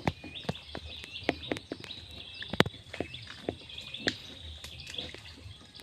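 Birds or insects chirp steadily over a string of irregular sharp clicks and knocks, the loudest about two and a half seconds in.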